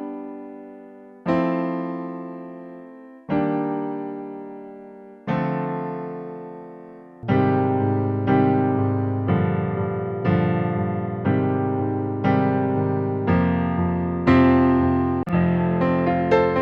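Piano music: sustained chords struck about every two seconds, each left to ring and fade. About seven seconds in, bass notes come in and the playing fills out, with chords changing roughly once a second.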